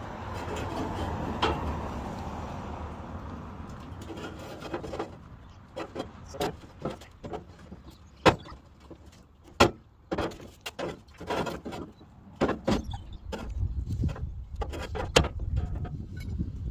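Steel pry bar working the rolled edge of a 1950 GMC pickup's bed rail open: scraping and rubbing at first, then a long string of sharp metal clanks and knocks as the bar levers the sheet metal, the two loudest a little past the middle.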